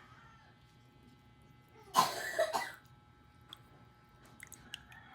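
A person coughing: a short burst of coughs about two seconds in.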